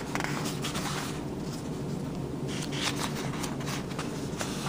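Light rustling and clicking handling noises, heavier in the second half, over a steady low hum.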